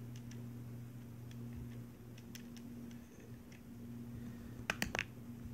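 Steady low electrical hum with scattered faint clicks, and a short cluster of sharper clicks near the end.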